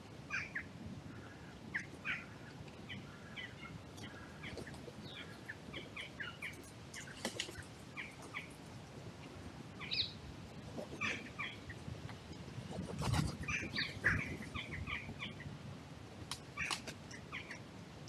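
Small birds chirping in short, scattered calls, with a louder brief flurry of wing flaps about thirteen seconds in.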